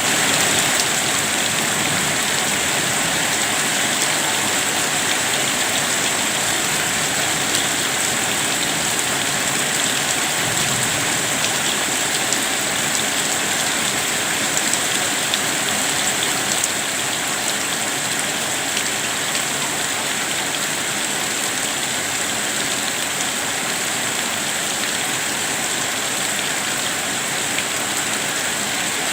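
Steady rain falling and pattering on a surface, with scattered individual drop ticks and no let-up.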